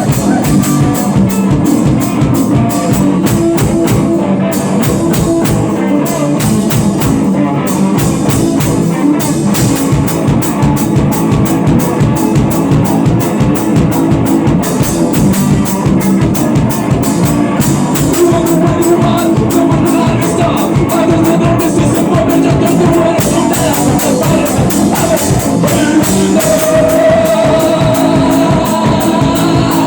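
Rock music with drum kit and electric guitar, with some singing.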